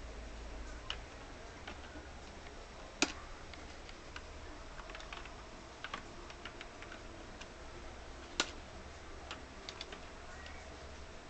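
Computer mouse clicks, scattered and irregular, with two louder ones about five seconds apart, over a low steady hum.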